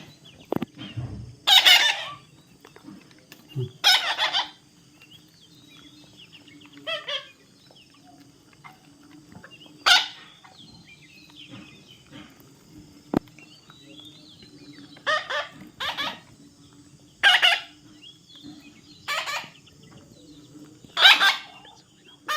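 Parrot squawking: about nine loud, harsh screeches spaced a second to a few seconds apart.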